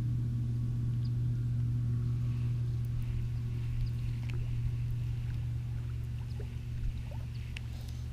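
A steady low motor hum, with light ticks and clicks from a baitcasting reel being handled and reeled in during the second half.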